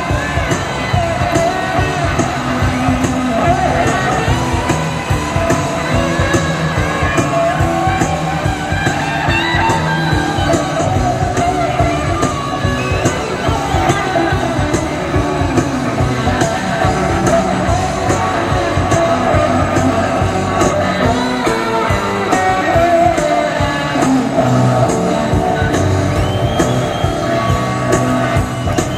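Rock music with guitar, a steady drum beat and a singing voice.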